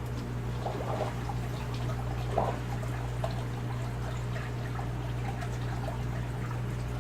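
Water pouring and trickling in an aquarium sump as the pump is run to get the overflows flowing again, with a few small splashes. A steady low hum runs underneath.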